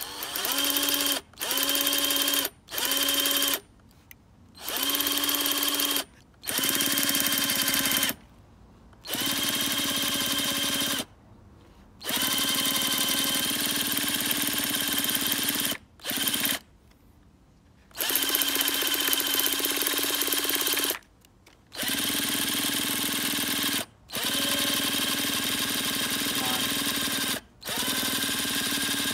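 Cordless drill spinning a nitro RC truck engine over in place of its broken pull starter. It runs in about a dozen bursts of one to four seconds each, a steady whine, and the engine does not catch.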